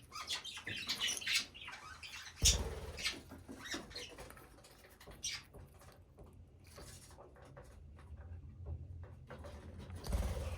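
Budgerigars pecking and nibbling at greens: a run of small, quick clicks and taps, quieter for a few seconds in the middle. A dull thump comes about two and a half seconds in and again near the end.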